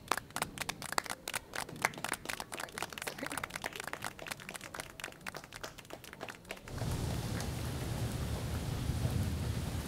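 Audience applauding for about seven seconds. It gives way abruptly to a steady rain-and-thunder sound effect with a low rumble.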